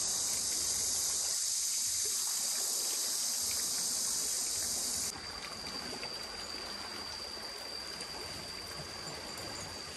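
Steady rushing of flowing water, with a loud high hiss over it that cuts off abruptly about five seconds in, leaving a thin steady high tone.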